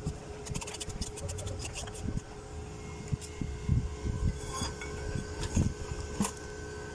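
Handling noise from an amplifier circuit board being lifted and turned over: scattered clicks, light knocks and rubbing. A faint steady hum runs underneath.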